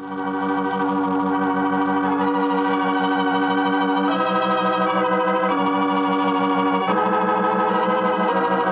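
Organ playing an interlude of held chords with a fast tremolo, the chord changing every second or so; closing bridge music of a 1940s radio drama broadcast.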